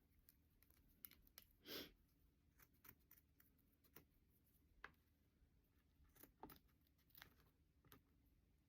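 Near silence: a few faint, scattered clicks and one soft rustle about two seconds in, light handling noise.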